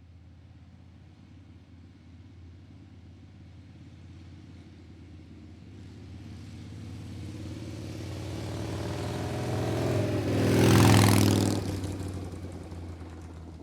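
A motor vehicle's engine approaching and passing by. It grows steadily louder, is loudest about eleven seconds in, dropping in pitch as it passes, then fades away.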